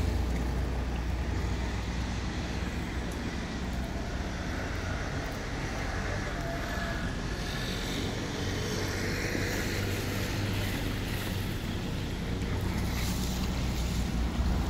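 Canal tour boat's engine running with a steady low rumble as it moves through the canal, under an even wash of outdoor city noise.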